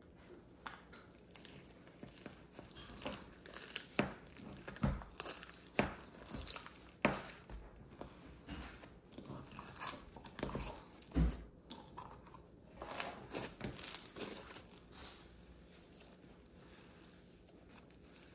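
Pink slime being dug into, pulled and stretched out of its plastic tub by hand, giving irregular small crackles and pops, with a few louder pops. The sounds thin out in the last few seconds.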